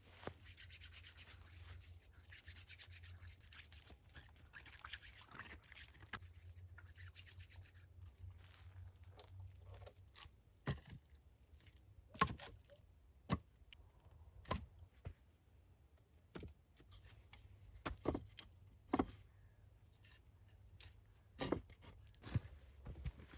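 Hand work on wood: a steady rasp of rubbing or scraping for about the first eight seconds, then a string of sharp, separate knocks with irregular gaps, mostly one to two seconds apart.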